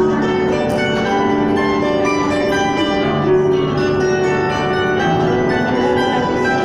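Bandura, the Ukrainian many-stringed plucked instrument, played live: plucked notes ringing on and overlapping in a steady flow of music.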